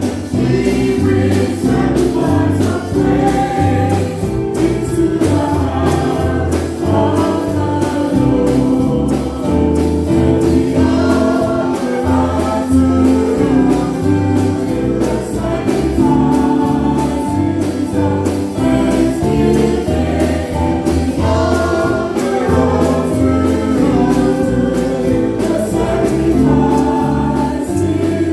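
Choir singing a gospel song with a live band, drums keeping a steady beat.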